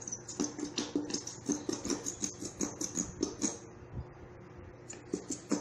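A plastic glue bottle squeezed over and over, squirting and sputtering with short squeaks, roughly three or four a second. It is nearly empty and pushes out air with the last of the glue. The squeaks stop for a moment, then come again near the end.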